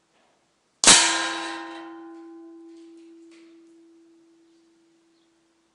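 An air gun pellet strikes the metal target holder behind the paper target with one sharp clang about a second in, and the steel keeps ringing, fading out over about four seconds.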